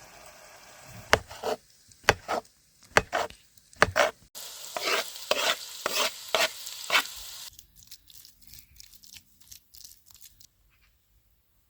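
Cooking in a pan: a few sharp knocks of a utensil, then about three seconds of food sizzling while it is stirred, trailing off into light clicks.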